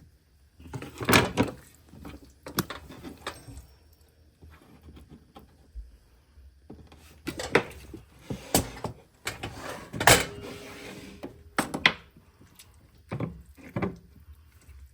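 Knife knocking and scraping on a cutting board as a raw chicken is cut up. The sharp knocks come irregularly, a second or two apart, with the loudest about a second in and about ten seconds in.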